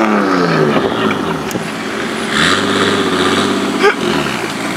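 Car engine revs falling away over the first second, then an engine held at steady revs for a couple of seconds before its pitch drops. A sharp click about four seconds in.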